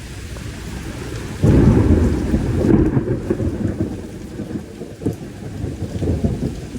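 Loud thunder breaks suddenly about a second and a half in and rolls on in a deep rumble that slowly fades over several seconds, over steady rain.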